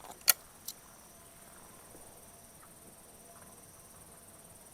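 Crickets chirring steadily at a high pitch. A single sharp click comes about a third of a second in, with fainter ticks just before and after it.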